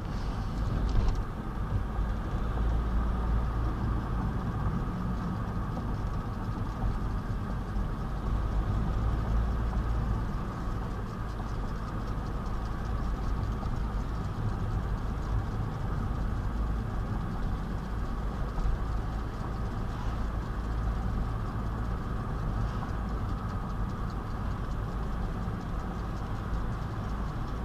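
Car driving at a steady speed, heard inside the cabin: a constant low rumble of engine and road noise with a steady engine hum.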